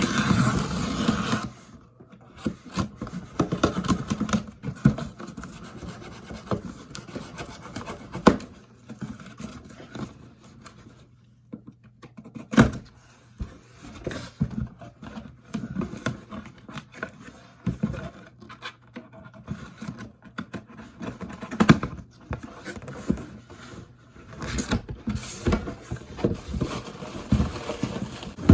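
Handling noise from opening a cardboard box and its packaging: irregular scratching, scraping and rubbing, with a few sharp knocks along the way.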